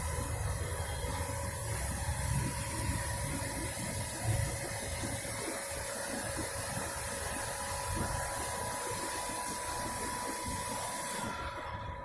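CNC machine running a drilling program in auto mode: a steady hiss with a faint steady whine and low rumble. The hiss cuts off suddenly near the end.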